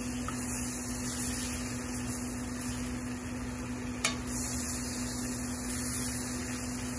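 Chicken strips frying in a stainless steel skillet, a low sizzle under a steady electrical hum, as they are turned with a metal spatula. A single sharp tap about four seconds in.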